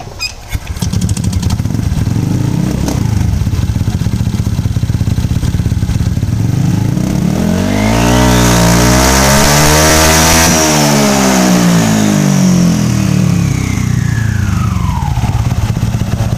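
Honda Vario 125 scooter engine, bored to about 153 cc, run with its CVT cover off: it catches about a second in and idles, then is revved once, its pitch rising to a peak about ten seconds in and falling back to idle, with a high whine at the top. The rev pushes the open CVT toward top ratio, the V-belt riding up to the edge of the drive pulley.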